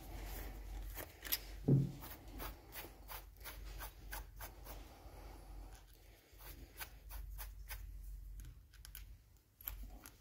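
Light metallic clicks and scrapes of two steel nuts being threaded by hand onto a bolt and locked against each other. A short low vocal sound comes about two seconds in.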